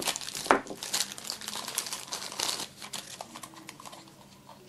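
Clear plastic bag crinkling as a small battery box is unwrapped from it by hand: a quick run of crackles that thins out over the last second or so.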